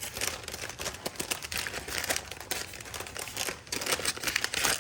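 Packaging being crinkled and rustled by hand as a parcel is opened, with irregular crackling.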